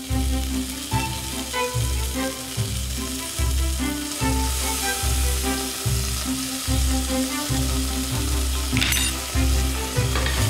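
Anchovy fillets and garlic sizzling in olive oil in a stainless steel saucepan, a steady frying hiss over background music with a regular beat. About nine seconds in there is a short louder burst as more food goes into the pan.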